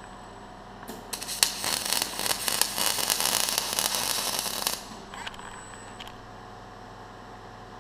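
Robotic welding arc crackling as it lays a weld, starting about a second in and cutting off near the five-second mark, with a couple of short sputters just after. Then only a steady low hum.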